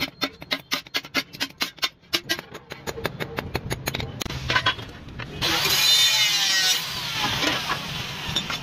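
A hand hammer striking a steel plate on an anvil, ringing blows at about four a second while the plate is hammered for a kassi (hoe) blade. About five seconds in, a loud rushing noise with sweeping tones lasts about a second and a half, followed by a steadier hiss.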